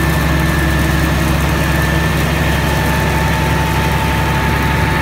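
Tractor engine running steadily, heard from inside the cab, with a steady high-pitched whine on top; a second, lower whine comes in about halfway through.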